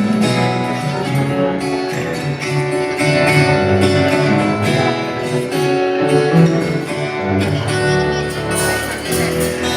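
Guitar strumming chords, moving from chord to chord every second or so.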